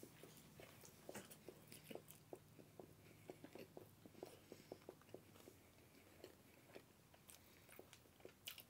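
Faint, steady chewing of a mouthful of soft sandwich, about three small chewing sounds a second.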